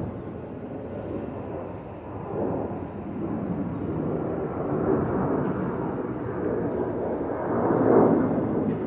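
Twin-engine jet airliner passing overhead: a continuous jet engine roar that rises and falls, loudest near the end.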